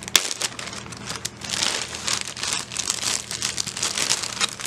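Plastic bag of jewelry crinkling as it is handled and opened. There is a sharp click just after the start, then dense crackling from about a second and a half on.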